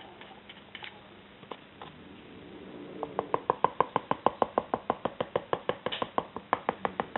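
A plastic tub of freshly poured wet plaster being tapped and jiggled in quick sharp knocks, about six a second, starting about three seconds in. This shakes air bubbles up out of the plaster.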